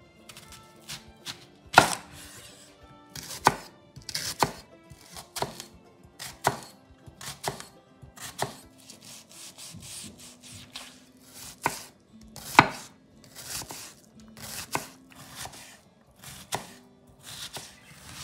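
Kitchen knife chopping food on a cutting board in slow, irregular strokes, about one a second, a few of them slicing through with a short crunch.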